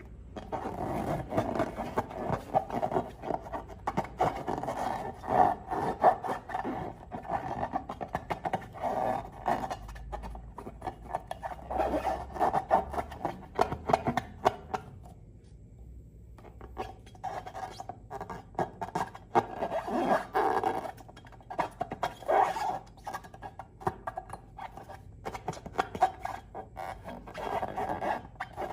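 Slime being mixed and worked, giving dense, irregular sticky clicks and crackles, with a short pause a little past the middle.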